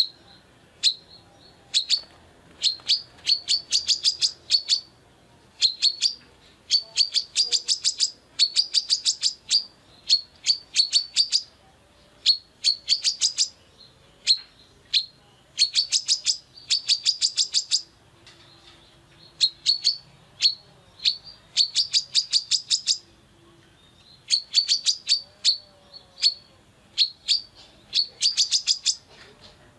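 Female brown-throated sunbird (kolibri kelapa) calling in quick bursts of rapid, sharp, high chips. Each burst lasts about a second, and they repeat with short pauses between them.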